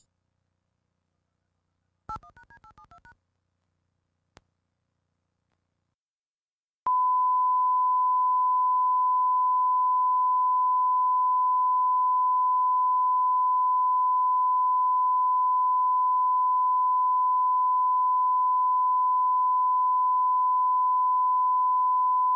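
A click and a quick run of touch-tone (DTMF) dialling beeps about two seconds in, then a second click. From about seven seconds a steady, pure single-pitch test tone comes on and holds unchanged, the off-air tone after a TV station signs off.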